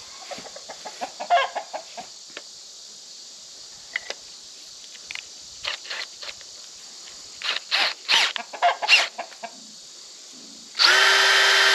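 Chickens clucking in short, scattered calls, with a cluster of louder ones about eight seconds in. Near the end a cordless drill's motor starts and runs at a steady speed, the loudest sound.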